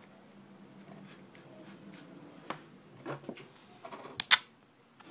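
Duct tape being handled and wrapped around a paper tube: soft crinkles and clicks, then a short, loud rip of tape pulled from the roll about four seconds in.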